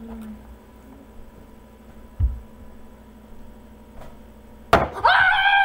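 Faint steady electrical hum with a dull bump about two seconds in. Near the end a sharp click, then a loud high-pitched squeal of about a second that rises and then falls.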